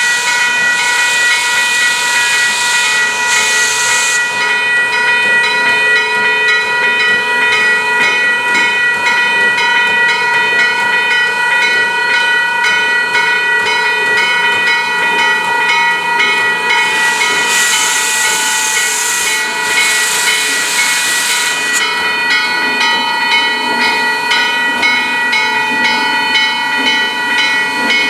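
Steam locomotive 1309, a 2-6-6-2 Mallet, hissing steam. Steady high-pitched whistling tones run throughout, with two louder bursts of venting steam: one at the start and one about two-thirds of the way in.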